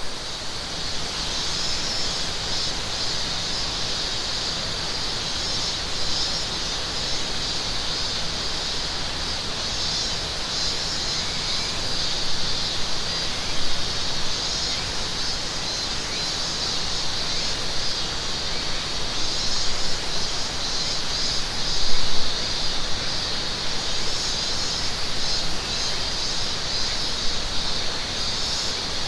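Midsummer forest ambience: cicadas droning in a steady high-pitched band, with a second, pulsing cicada call above it, over the even rush of a river. A brief louder sound stands out about 22 seconds in.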